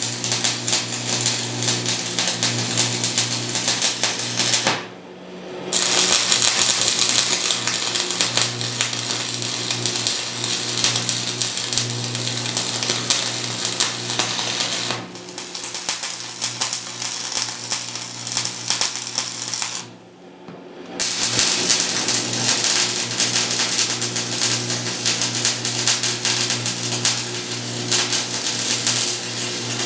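Electric arc welding on thick steel plate: a dense, continuous crackle over a steady buzz. The arc stops briefly about five seconds in and again around twenty seconds in, with a short break near fifteen seconds.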